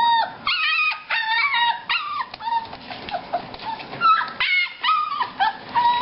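Puppies and their mother dog howling and yelping in a run of short, high calls that bend up and down, about two a second, some overlapping. They are upset because one puppy has escaped the whelping pen.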